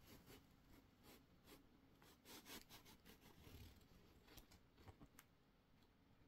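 Near silence: room tone with a few faint, scattered soft clicks and rustles.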